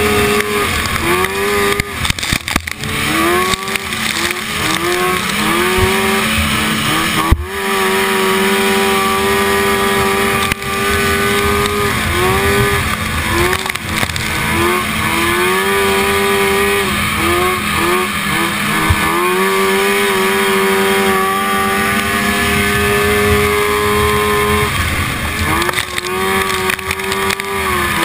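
1974 Rupp Nitro snowmobile's two-stroke engine at racing speed, heard from on board. It holds a steady pitch on the straights, then drops and climbs back again and again as the throttle is let off and reopened through the corners. A single sharp thump comes about seven seconds in.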